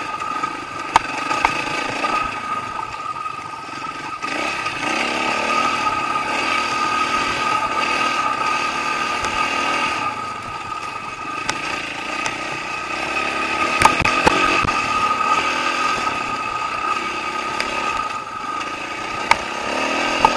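Dirt bike engine running on a rocky trail, its pitch rising and falling with the throttle, with occasional sharp knocks and clatter from stones and the bike's chassis.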